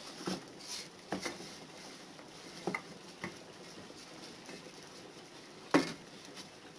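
Hands patting and rubbing flour over rolled-out dough on a plastic cutting board: soft scattered taps, with one sharper knock near the end.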